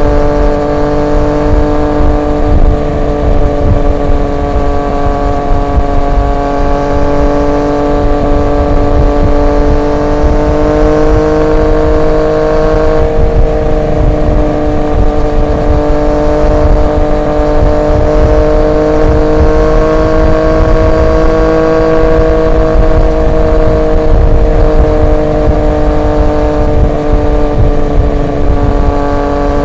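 Triumph Street Triple 765 RX's inline three-cylinder engine through an SC Project S1 aftermarket exhaust, cruising at a near-steady speed, its note rising and falling gently. A low rumble runs underneath.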